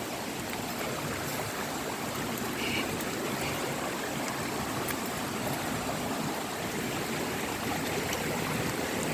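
Steady rush of water from the cascades of Argyle Waterfall.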